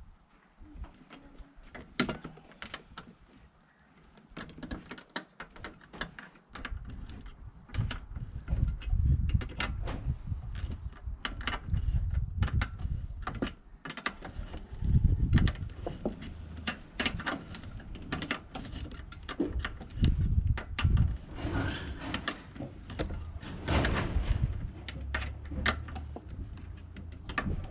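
Irregular metallic clicks, knocks and clinks of a spanner and loose parts as the wiper linkage idler is worked off, over low rumbling handling noise. Sparse for the first few seconds, then busier.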